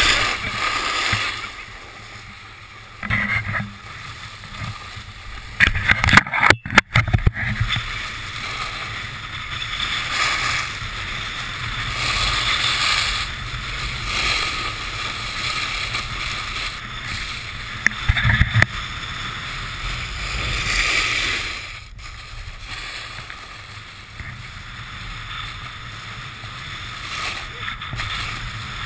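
Wind rushing over an action camera's microphone during a fast ride down a groomed ski slope, with the scrape of board edges on packed snow. A cluster of loud knocks about six to seven seconds in and another about eighteen seconds in.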